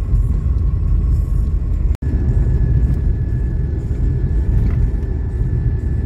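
Lada Niva driving on a snowy dirt road, heard from inside the cabin: a steady low rumble of engine and tyres with a faint steady whine above it. The sound breaks off for an instant about two seconds in, then carries on unchanged.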